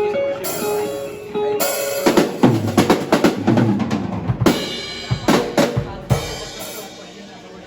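Drum kit being played, with kick, snare and cymbal hits; the playing fades out near the end.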